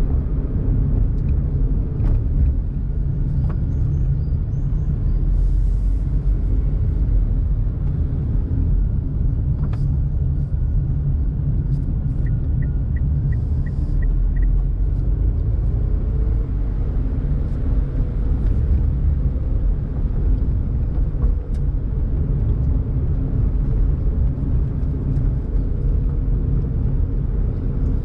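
Daihatsu Mira Tocot's three-cylinder kei-car engine humming steadily under a constant low rumble of tyre and road noise, heard from inside the moving car. About twelve seconds in comes a short run of faint high ticks.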